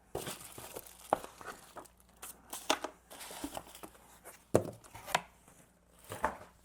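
Cardboard box and packaging being opened and handled: irregular crinkling and rustling with sharp knocks and clicks, the loudest about a second in and again near the middle.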